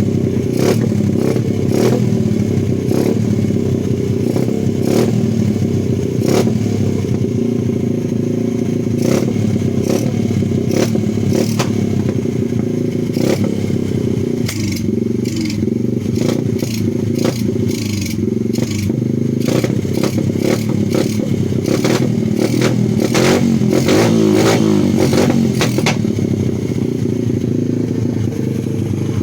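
A 125cc pit bike's single-cylinder engine running steadily at low revs, with many irregular sharp clicks and pops over the engine note. It is running rough, which the owner puts down to a missing intake-manifold gasket letting air in and a spark plug due for replacement.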